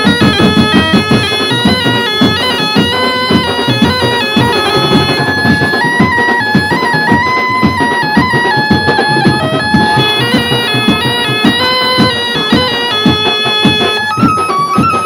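Background music: a reedy wind-instrument melody in held notes over a steady drum beat.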